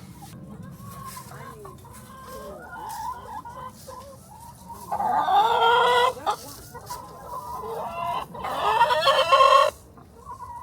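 Chickens clucking, with a rooster crowing twice, each crow lasting about a second and the loudest thing heard.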